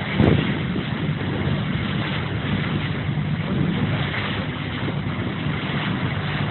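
Boat engine running steadily as a low drone, under a haze of wind noise on the microphone.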